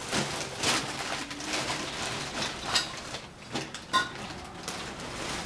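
Plastic bag rustling and crinkling as hands rummage inside it, with several sharper crackles.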